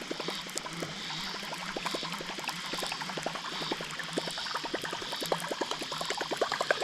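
River water trickling and gurgling, a dense patter of small clicks and splashes over a steady wash.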